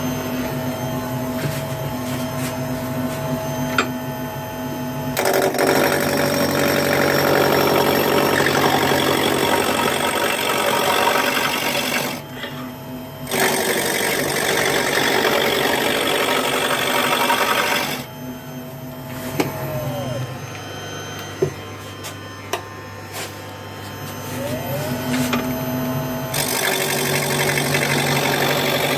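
Wood lathe running with a steady motor hum while a gouge cuts the spinning spindle blank. The cutting comes in loud, rough spells of several seconds, with quieter pauses between them where only the lathe hum is left.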